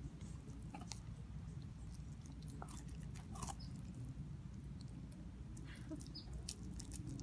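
Siberian husky chewing on a raw steak bone: faint, irregular wet clicks and crunches of teeth on meat and bone.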